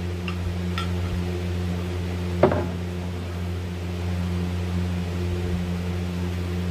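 Aluminium worm injection mold being handled and opened: two light clicks, then one sharp metallic knock about two and a half seconds in. A steady low machine hum runs underneath.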